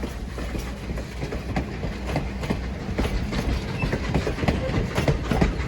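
Steam-hauled excursion train behind 2-6-0 mogul locomotive No. 89 rolling by, its wheels clicking over the rail joints over a low rumble and getting louder as it comes closer.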